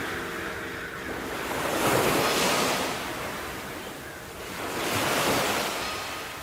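Sea waves washing in, the surf swelling and falling back twice, about three seconds apart.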